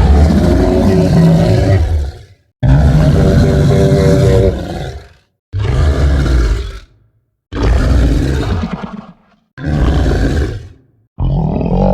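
Stegosaurus sound effect: a series of loud, low dinosaur roars, about six in all, each starting abruptly and dying away over one to two seconds with short silences between.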